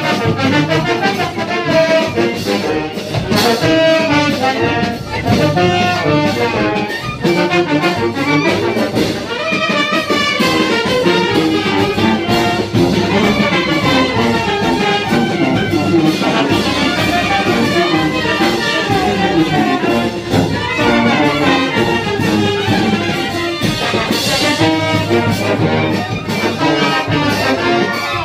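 Brass band with sousaphones playing lively dance music with a steady beat.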